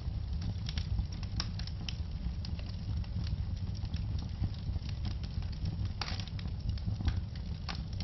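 Fire burning in a fireplace: a steady low rumble of flames with scattered crackles and pops, a louder pop about six seconds in.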